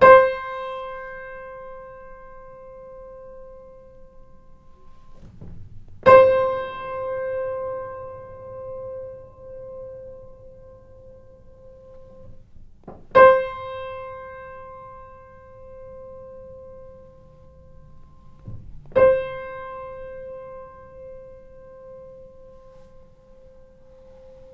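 Grand piano: the same single note struck four times, about six seconds apart, each left to ring and fade. It is played four ways in turn: with no pedal, with the damper pedal down before the strike, with the damper pedal added after the attack, and with the una corda soft pedal engaged.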